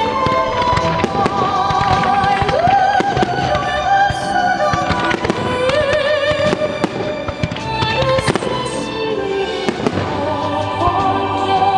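Fireworks bursting and crackling one after another in quick succession, over loud show music with a sustained, wavering melody. The music sounds oddly warped, the result of a music-removal edit applied to the upload.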